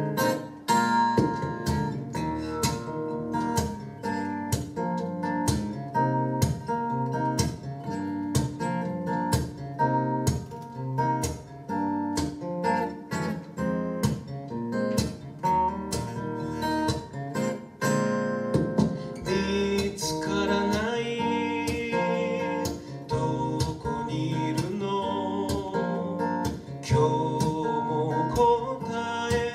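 Acoustic guitar strummed in a steady rhythm, with a man's singing voice coming in clearly about two-thirds of the way through.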